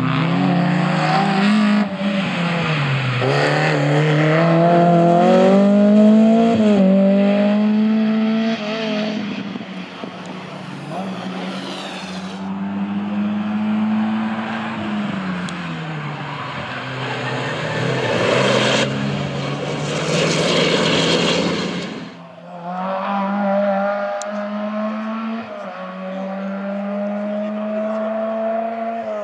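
Rally cars driven hard past on a tarmac stage, one after another, first a Volkswagen Golf II and then a Mitsubishi Lancer Evolution. The engine notes climb under acceleration and drop at gear changes and braking. After a sudden break about 22 seconds in, a steadier engine note follows.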